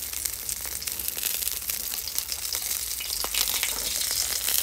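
Marinated duck sizzling and crackling on an electric grill, its fat and juices dripping onto the red-hot heating coils. It grows slowly louder toward the end.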